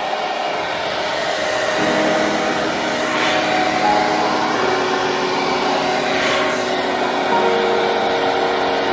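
Conair hand-held hair dryer running on its high setting: a steady, loud rushing of air and motor noise.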